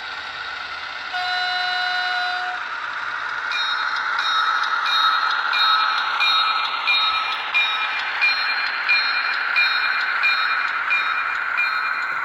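Model diesel railbus's sound decoder giving a short horn toot, then playing the running railcar sound, with a regular click about every two-thirds of a second.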